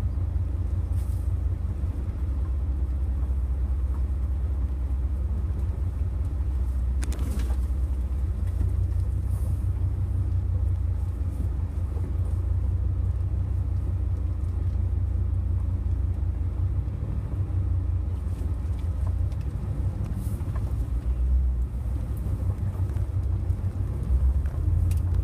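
Steady low rumble of a truck's engine and drivetrain inside the cab as it crawls down a rough dirt trail, with one brief knock about seven seconds in.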